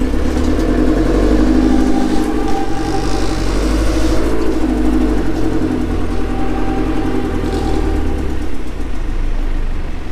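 A motor vehicle's engine running close by as it moves slowly, a steady low rumble with a pulsing drone that swells a little in the first few seconds.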